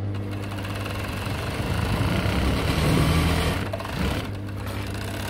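Overlock machine (serger) running steadily, stitching an elastic band onto a trouser waistband, with a steady motor hum under the rapid stitching. It stops briefly about four seconds in, then runs again.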